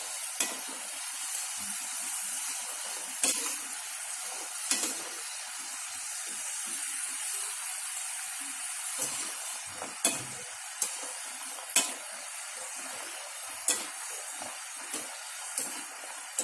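Shakkar pare pieces deep-frying in hot oil in a metal kadhai: a steady sizzle. Every second or few a sharp metallic click sounds as a wire skimmer and tongs stir the pieces against the pan.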